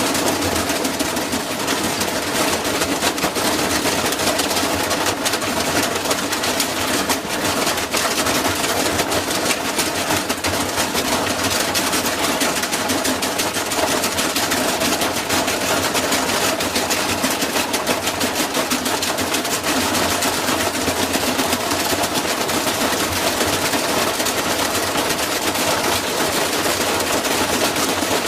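Washing machine running hard, rattling and knocking in a fast, unbroken stream, as a machine that is shaking violently.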